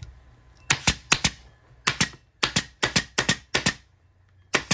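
Air-powered upholstery stapler firing staples through vinyl into a wooden panel: a quick series of about nine sharp snaps over about four seconds.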